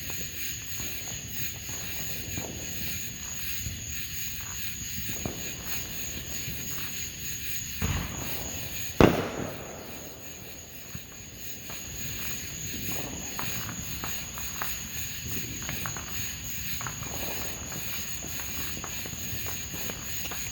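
A consumer firework going off with a single loud bang about nine seconds in, just after a softer, lower thump. Steady chirring of night insects carries on underneath.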